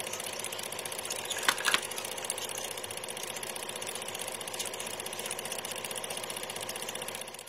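End-card sound effect: a steady, fast mechanical rattle with two short clicks about a second and a half in, fading out at the very end.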